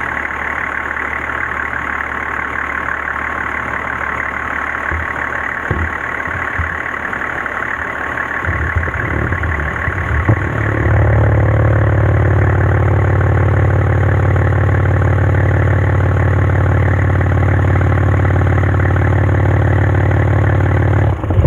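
Toyota Land Cruiser 70 (HZJ76K) 1HZ inline-six diesel engine idling steadily. About halfway through it gets louder and deeper, then holds steady.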